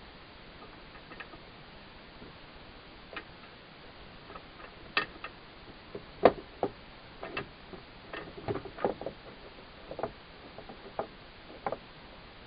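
Irregular clicks and light knocks, sparse at first and more frequent in the second half, the loudest a little past the middle; no motor running.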